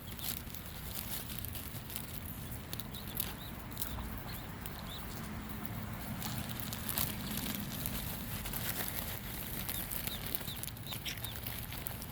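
A mother duck and her ducklings feeding on scattered food: many quick clicks with a few short high peeps.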